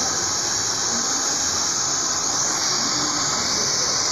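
Hand-held hair dryer blowing steadily into hair worked over a round brush during a blow-dry: an even, unbroken hiss of rushing air.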